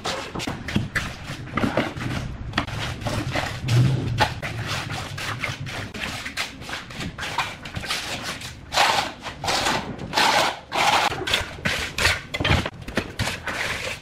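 Steel trowel and float scraping, slapping and tapping through wet concrete mortar as it is spread and packed into a countertop form: a quick run of knocks and scrapes, with longer rasping strokes in the second half.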